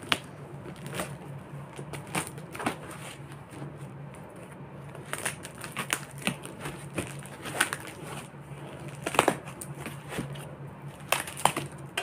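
Scissors snipping through a white foam packing sheet in short, irregular cuts, with the foam crinkling as it is handled; the sharpest snips come about nine seconds in and again near the end.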